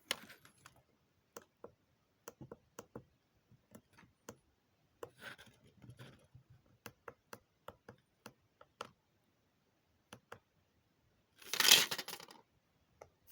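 Scattered small clicks and taps at irregular intervals, then a louder short rustle about three quarters of a second long near the end.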